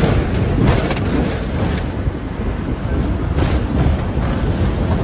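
Hong Kong double-decker tram running along its street tracks: a steady rumble with a few sharp clacks from the wheels over the rails, mostly in the first couple of seconds.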